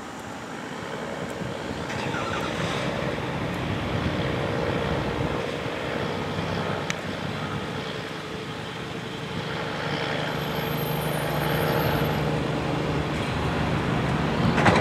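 Cessna 172M's four-cylinder Lycoming engine and propeller running at low taxi power, a steady drone that grows louder over the first few seconds as the plane comes closer. A short knock near the end.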